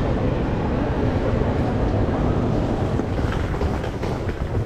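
Suitcase wheels rumbling steadily over paving stones as wheeled luggage is dragged along, with a few faint clicks.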